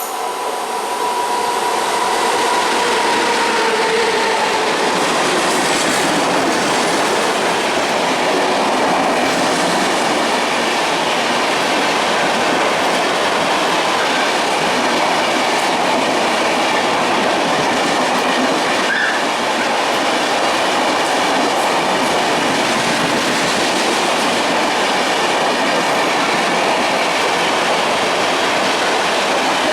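A train passing close by, its wheels clattering steadily over the rail joints. The sound swells over the first couple of seconds, then holds steady. A faint tone slides down and fades in the first few seconds.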